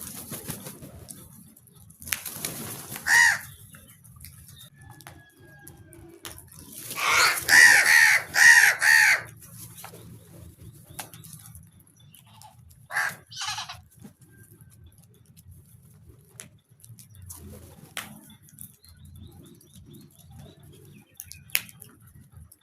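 Crows cawing: a call about two to three seconds in, a loud run of about four harsh caws around seven to nine seconds, and two short caws a little after thirteen seconds.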